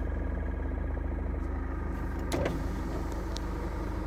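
Truck engine idling steadily, with one brief sharp knock about two and a half seconds in.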